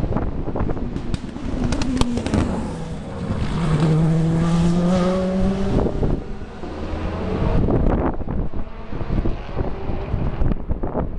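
Race car engine passing, its note falling around two seconds in and then holding a steady pitch for a couple of seconds, under heavy wind buffeting on the microphone.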